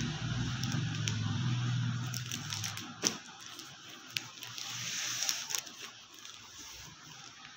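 Folded sarees with copper zari borders rustling and crinkling as hands handle them, with two sharp clicks about three and four seconds in and a low hum during the first couple of seconds.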